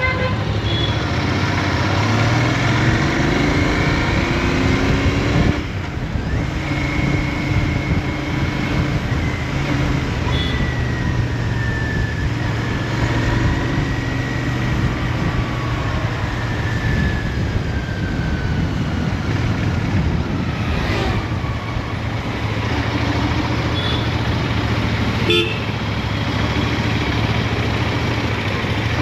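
Royal Enfield Interceptor 650's parallel-twin engine through its stock exhaust, running in city traffic and revving up early on, with a brief drop in level about six seconds in as the throttle eases. Other vehicles' horns toot now and then.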